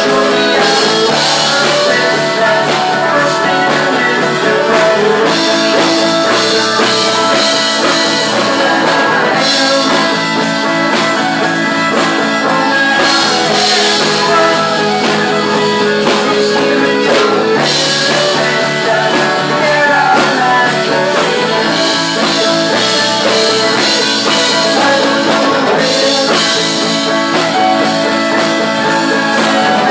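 Live band music: electric guitar, fiddle and drum kit playing a rock-style song, with a man singing at times.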